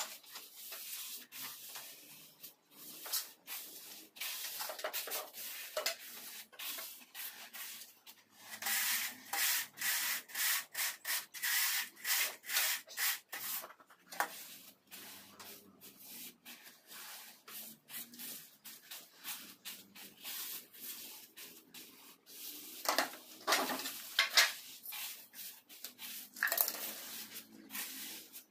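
Hand float and trowel scraping over wet sand-and-cement mortar while a floor screed is levelled and smoothed, in quick repeated back-and-forth strokes. The strokes come thickest and loudest around the middle, with a few more loud scrapes near the end.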